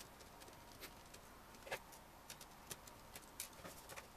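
About a dozen light, scattered clicks and taps from a screwdriver and small screws and plastic parts being handled on a laptop LCD screen assembly resting on a wooden table, against near silence.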